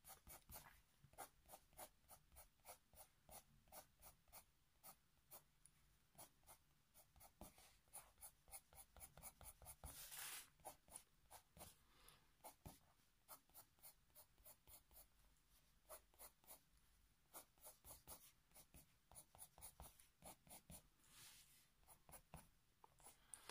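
Faber-Castell Polychromos coloured pencil hatching on paper: faint, quick short scratching strokes, a few a second, repeated evenly.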